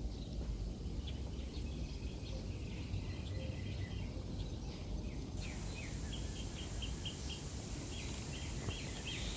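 Small birds chirping in short repeated notes, busier in the second half, over a steady low background rumble.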